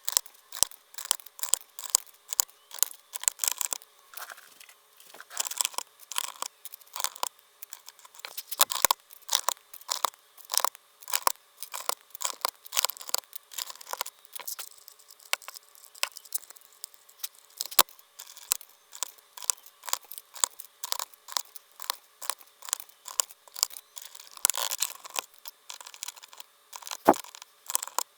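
Dye-sublimated plastic keycaps being pried off and pressed onto a Happy Hacking Keyboard's Topre switch stems: an irregular run of sharp plastic clicks and clatter.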